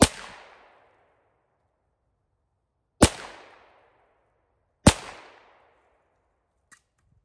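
Three gunshots from a firearm, the second about three seconds after the first and the third about two seconds later, each followed by a short fading echo. A faint click comes near the end.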